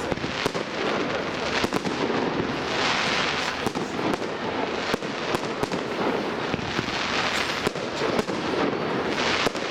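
Aerial fireworks display going off: a continuous crackle of bursting shells, dotted with many sharp bangs in quick succession.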